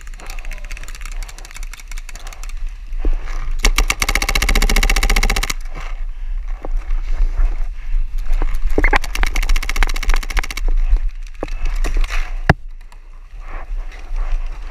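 Paintball marker firing rapid strings of shots: two bursts of about two seconds each, about four and about nine seconds in, with scattered single shots around them.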